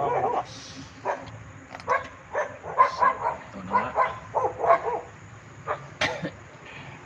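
A dog barking repeatedly, short barks coming in quick clusters, most thickly from about two to five seconds in.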